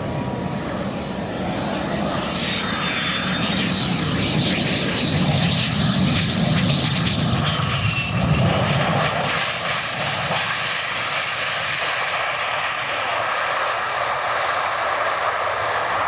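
Saab 37 Viggen's Volvo RM8 turbofan running steadily as the jet comes in for a short-field landing, with a high whine that dips in pitch twice.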